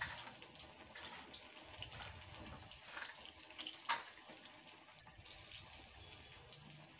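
Batter-coated potato slices deep-frying in hot oil in an iron kadai, a steady sizzle, while a metal slotted spatula scrapes and clinks against the pan as the fritters are turned. A couple of louder clinks come about four seconds in and just after five.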